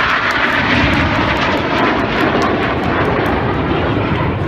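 Red Arrows BAE Hawk T1 jets flying past, a loud jet-engine roar whose pitch drops over the first couple of seconds as they go by.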